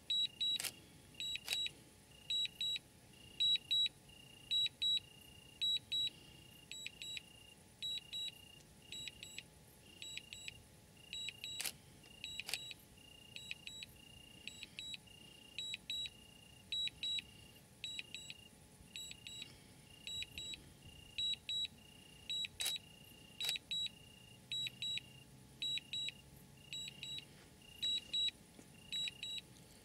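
Insects chirping in a high-pitched, rhythmic pattern about one and a half times a second, with a pair of sharp clicks three times, about eleven seconds apart.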